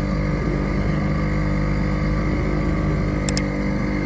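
Motor launch's engine running steadily at a constant speed.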